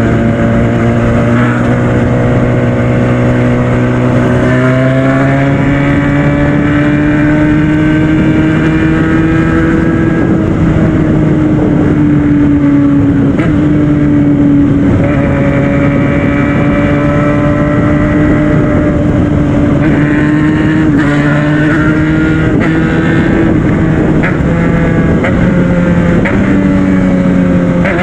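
Yamaha FZ6 Fazer 600's inline-four engine running under way with wind rush, its note holding steady and shifting up and down in pitch several times, rising about five seconds in and dipping then climbing again near the end. The engine sound is the chopping, helicopter-like noise the owner says the bike is making.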